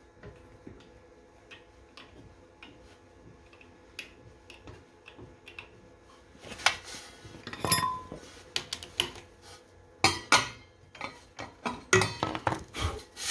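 Metal clinks and knocks from the engraved steel tumbler and its holder being handled on the rotary axis: faint light ticks at first, then louder separate clinks from about halfway, one with a short metallic ring.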